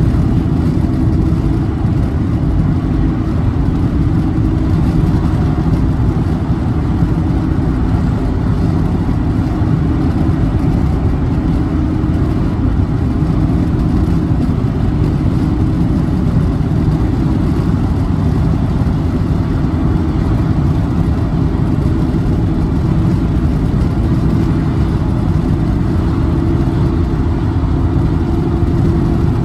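Road noise inside a car cruising at highway speed: a steady drone of tyres and engine with a constant low hum and no change in pace.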